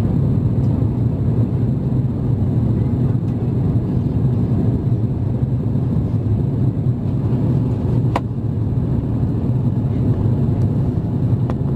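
Steady low cabin roar of an Airbus A350-900 in the climb, its Rolls-Royce Trent XWB engines and the airflow heard from a window seat inside the cabin. A single sharp click about eight seconds in.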